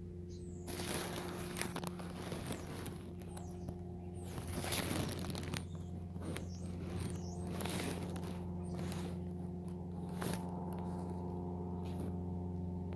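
Plastic bag crinkling and rustling in irregular bursts over a steady low hum.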